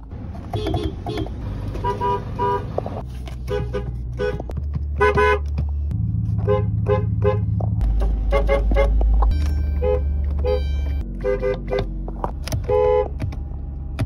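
Car horns of several different cars sounded from inside the cabin: a run of short toots and a few longer blasts, each car's horn with its own pitch, over the steady low hum of the idling engine, which changes from car to car.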